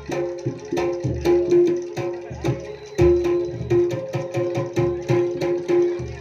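Jaranan (kuda lumping) accompaniment music: drums beat a busy rhythm with deep hits, over a repeated, held pitched note.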